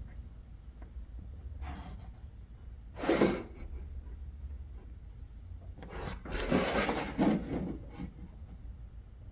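A hand tool rasping into drywall, cutting the opening for a switch box. It makes short scraping strokes: a brief one, a louder one about three seconds in, and a longer run of strokes near the end.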